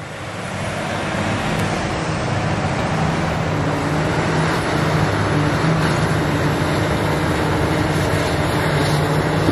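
Diesel engine of a loaded Volvo A25G articulated dump truck running as it pulls away. It grows louder over the first couple of seconds, then holds a steady drone.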